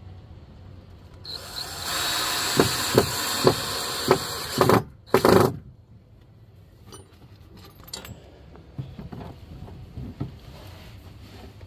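Power drill driving screws into wood: a run of about four seconds with several sharp peaks in it, then it stops. A few light knocks follow.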